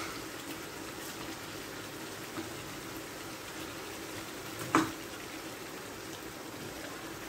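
Tomato stew simmering in a pan over a gas flame, a steady soft bubbling hiss, with one short sharp knock about five seconds in as fried tilapia pieces are laid into the pan.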